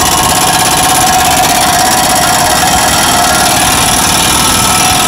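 Pneumatic impact wrench hammering loud and steady on the forcing screw of a C-clamp ball joint press. The press is pushing a worn ball joint out of its steering knuckle.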